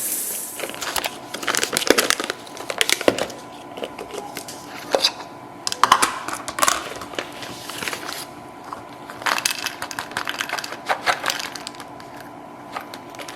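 Irregular clicks, knocks and light clatter of small hard objects being handled.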